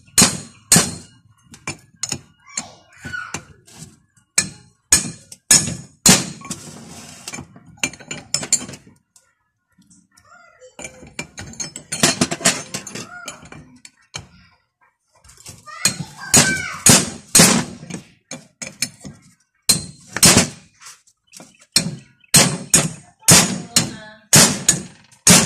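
Steel wrenches and pipe fittings clinking and knocking against each other and the metal workbench as fittings are assembled onto a drilling machine's control valve, in irregular sharp strikes with a short pause about ten seconds in.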